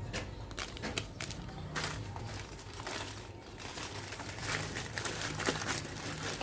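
Packaging crinkling and rustling in a run of short, irregular crackles as the switch's retail box is handled and opened.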